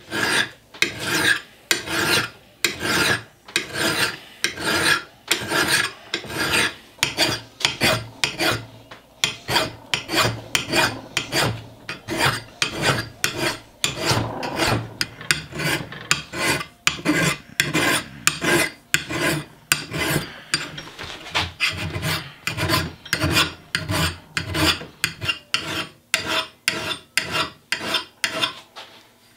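Hand file scraping across the steel bit of a Kelly Perfect single-bit axe head held in a bench vise, sharpening the edge. The strokes are even and rhythmic, about two a second.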